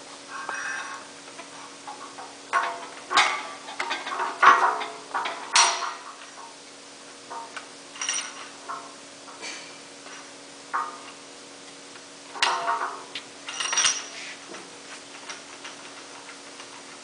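Irregular metallic clicks, knocks and scrapes of a .338 Lapua rifle being handled and fitted into a steel test-firing fixture, loudest about four to six seconds in and again near thirteen seconds, over a steady low hum.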